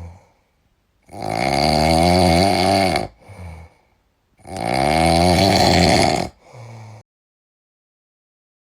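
Pig snoring sound effect: two long snores of about two seconds each, each followed by a short softer breath, then silence near the end.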